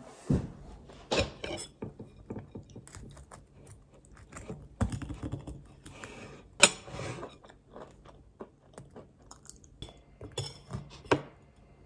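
A person biting and chewing crunchy food close to the microphone, in irregular crunches.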